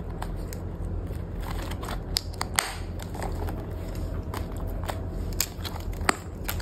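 Clear plastic ring binders being handled: pages flipped, a binder lifted and opened, giving scattered irregular clicks, taps and plastic crinkles.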